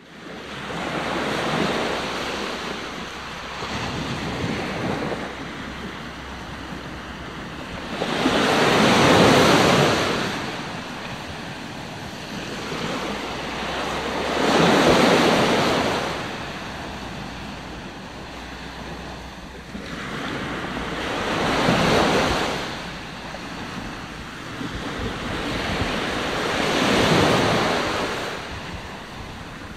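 Surf breaking and washing up a sandy beach, the sound swelling into a loud surge every five to seven seconds as each wave comes in, then falling back.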